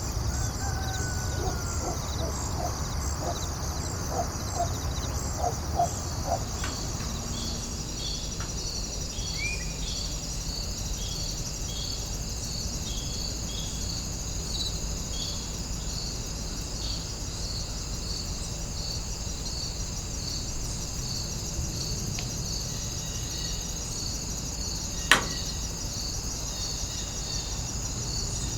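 A chorus of crickets and other insects: a steady high trill with rhythmic chirps about twice a second over a low steady rumble. A few short calls and a brief rising whistle come in the first several seconds, and a single sharp click sounds near the end.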